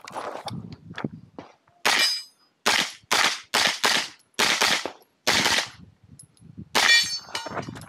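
Pistol-caliber carbine fired in a stage run: about ten sharp shots starting about two seconds in, many in quick pairs, the last one near the end.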